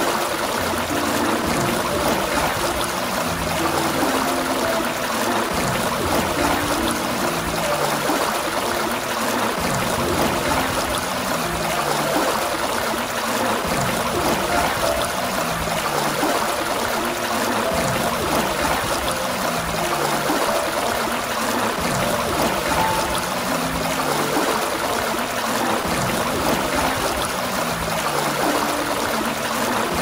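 Water gushing steadily from a fountain, an even rushing splash. Beneath it runs a soft, slow pattern of low notes stepping downward and repeating every few seconds.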